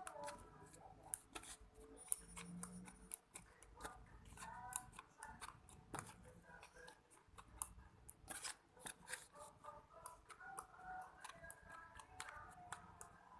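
Homemade slime being squeezed and stretched by hand, giving quiet, irregular sticky clicks and pops.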